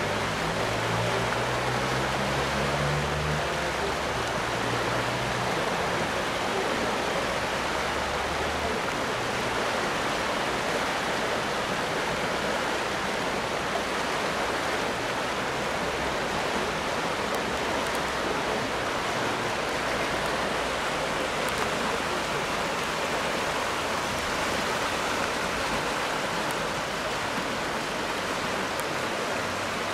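Steady rush of the flooded River Stour's fast-flowing floodwater, an even rushing noise.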